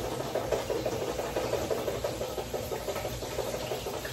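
Chicken frying in hot oil: a steady, dense crackling sizzle.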